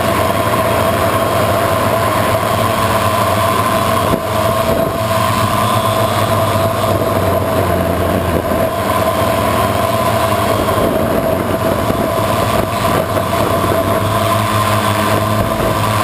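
Electric motors and propellers of a multirotor drone running steadily in flight, heard from its onboard camera: a loud, constant whine with two steady tones over a rush of noise.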